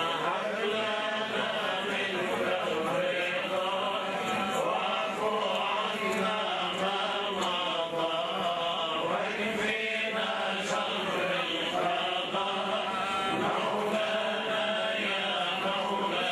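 Large crowd of men chanting together in Arabic, many voices overlapping in a continuous funeral chant.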